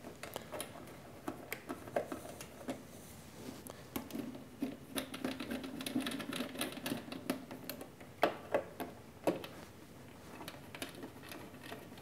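Motor cable connectors on a CNC plasma table's control box being unplugged, handled and plugged back in: a run of small clicks and rattles, with two sharper clicks about eight and nine seconds in.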